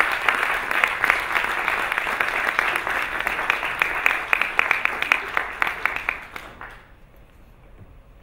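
Audience applauding, many hands clapping, dying away about six and a half seconds in.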